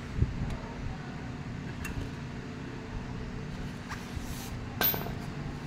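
Socket ratchet on a scooter's oil drain plug being finished off and lifted away: a sharp metallic click just after the start, a few faint ticks, and a louder clack near the end, over a low steady background rumble.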